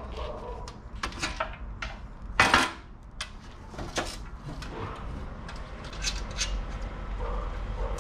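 Light metallic clinks, taps and knocks as a stainless-steel licence plate bracket and its nuts and washers are handled and fitted by hand. One louder, longer clatter of metal comes about two and a half seconds in.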